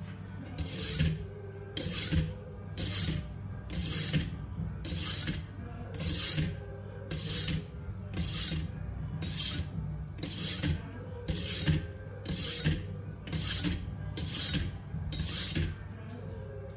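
A kitchen knife blade drawn repeatedly through a metal rod knife sharpener: a metal-on-metal scrape about once a second, some sixteen strokes, over a steady low hum.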